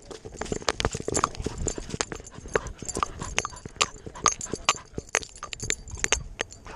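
A dog running through dry grass and mud, heard from a GoPro strapped to its body: irregular knocks and clicks several times a second from its footfalls and the camera mount jostling, with grass brushing past.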